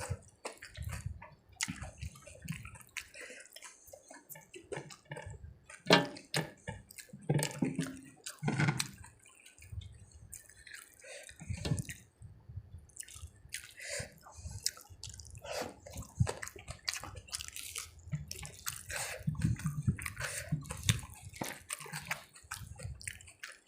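Close-miked wet eating sounds from a mouthful of rice and curry: a string of short, irregular smacks and squelchy clicks, with a few louder ones.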